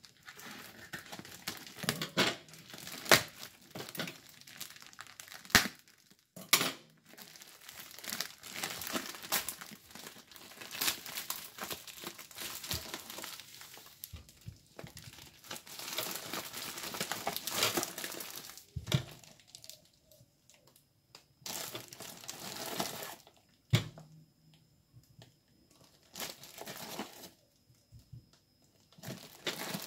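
Plastic parcel wrapping and brown packing tape crinkling and tearing as the parcel is cut open with scissors and pulled apart, with sharp snaps among the rustle. In the last third the rustling comes and goes with quiet pauses between handlings.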